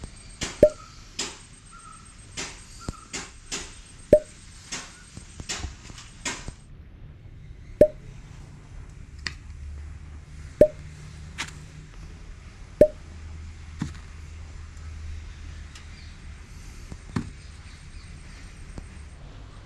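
Series of sharp clicks and knocks from metal tools being handled during a motorcycle oil change. They come in quick succession for the first few seconds, then every second or two. A handful of the louder ones ring briefly, like metal striking metal.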